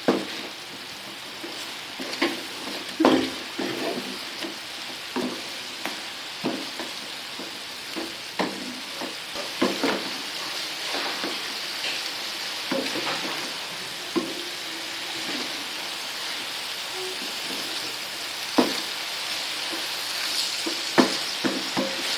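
Food sizzling in hot oil in a pan, a steady hiss, with a spatula stirring and knocking against the pan at irregular moments throughout.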